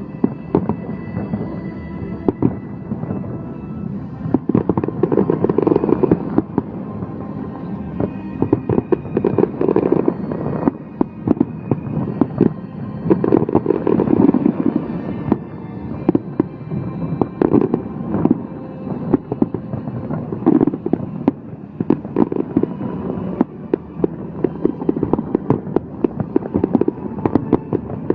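Fireworks display going off: a dense run of crackling and popping bursts with bangs among them, swelling to louder barrages several times.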